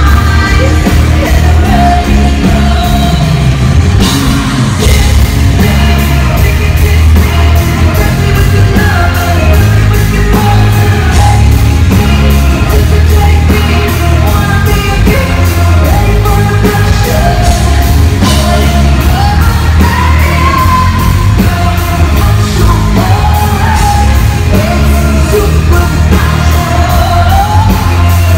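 Live pop concert music heard in an arena: a singer's voice over a band with a heavy bass line and a steady drum beat.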